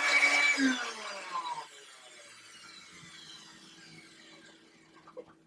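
Countertop blender switched off after blending a milkshake: its motor winds down, the pitch falling for about a second until it stops. A faint hum and a few faint clicks follow near the end.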